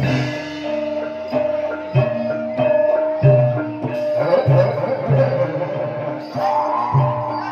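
Gamelan-style music: mallet-struck tuned percussion over regular low drum strokes, with a long held melody note.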